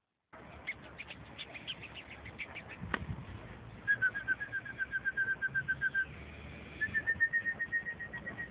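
A songbird singing: a quick falling run of high notes, then two rapid trills of evenly repeated notes, about seven a second. There is a single knock about three seconds in.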